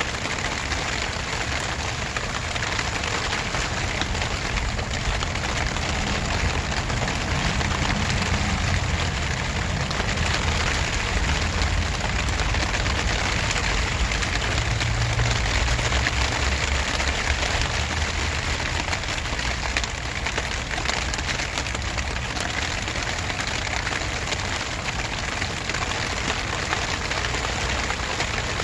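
Steady rain falling, an even hiss throughout, with a low rumble underneath that swells from about six seconds in until about eighteen seconds in.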